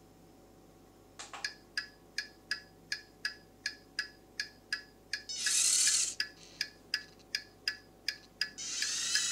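Hazard-light ticking sound effect from the Turbo Racing C50 RC semi truck's built-in speaker: evenly spaced electronic ticks, nearly three a second, starting about a second in. A short hiss comes about five and a half seconds in, and a steady electronic hum joins near the end.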